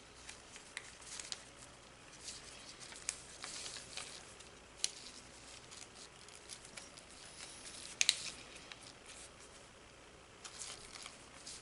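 Faint rustling and scattered small clicks of a model rocket parachute and its shroud line being handled while the line is threaded through a tape disc and tied, with a sharper pair of clicks about eight seconds in.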